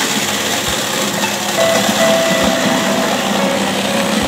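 Meatball-dough bowl cutter running steadily, its motor and blades working ground meat in the rotating steel bowl. A slow melody of held notes plays over it.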